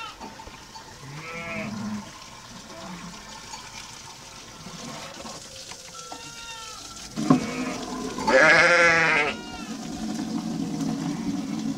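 Sheep bleating: a few short bleats, then a loud, wavering bleat about eight seconds in, just after a sharp knock. A steady low hum follows near the end.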